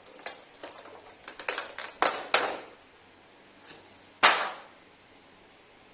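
A series of sharp clicks and knocks, with the loudest single knock a little over four seconds in.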